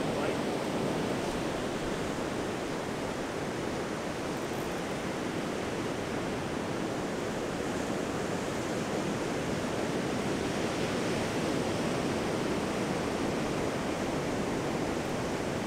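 Ocean surf washing steadily onto a sandy beach, an even rushing noise with no distinct breaks.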